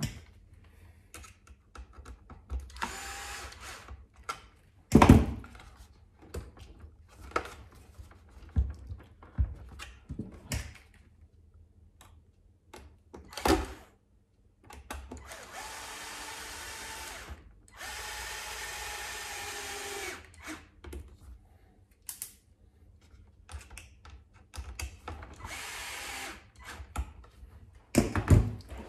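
Cordless drill-driver running in four short runs of one to two seconds each, driving screws that fix plastic inner fenders to an RC truck chassis. Clicks and knocks of parts being handled come between the runs; the loudest knocks are about five seconds in and again near halfway.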